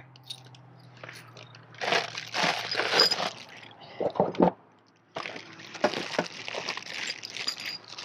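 Clear plastic bags of small hardware crinkling and rustling as they are handled and pulled out of a plastic bucket, in two main spells of crackly noise.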